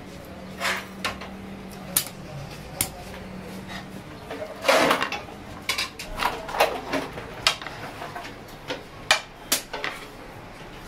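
A metal serving scoop clinking and scraping against a large metal pan and a ceramic plate as rice is dished out: a string of sharp, irregular clinks.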